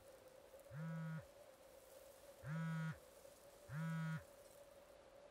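Mobile phone vibrating with an incoming call: three low buzzes of about half a second each, the last two close together.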